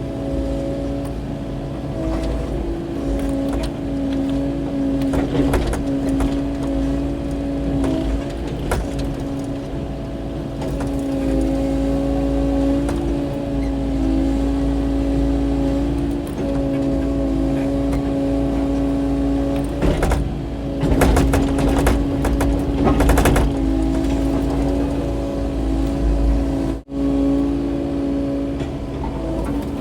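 Excavator diesel engine running steadily at working speed, likely the Kubota KX080-4 clearing brush, with a run of sharp cracks and knocks about twenty seconds in as brush and rock are broken and moved. The sound cuts out for an instant near the end.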